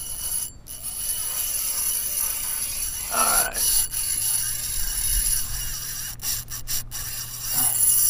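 Spinning reel's drag buzzing steadily as a hooked fish pulls line off against it.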